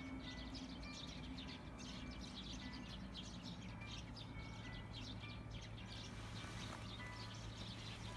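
Small birds chirping busily in the background, with faint music of short held notes underneath.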